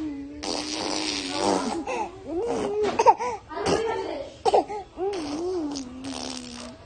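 A six-month-old baby blowing raspberries with his lips, a spluttering buzz over a held hum from his voice, which sounds like fart noises. Laughter and wavering vocal sounds break in about halfway through.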